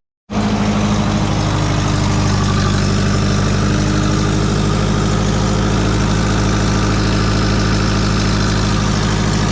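Turbocharged Subaru EJ20 flat-four engine idling steadily, coming in abruptly at full level just after the start. The owner hears an exhaust leak at both wastegates in it.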